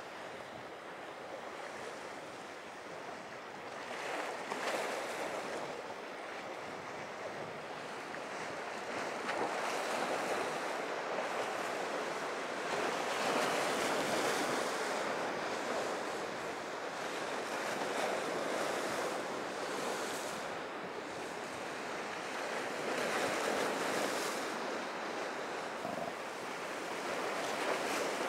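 Rough inlet surf: waves washing and breaking, swelling in surges every few seconds, with wind buffeting the microphone.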